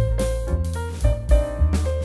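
Instrumental background music led by piano, over a bass line and a regular beat.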